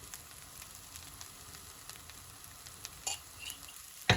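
Vegetable fried rice sizzling in a hot pan, with scattered small ticks and crackles. A single sharp knock sounds near the end.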